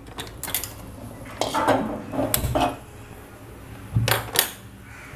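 Metal kitchenware being handled beside a gas stove: a string of separate clinks and knocks, with two louder sharp clicks about four seconds in as a hand-held lighter is worked at the burner to light it.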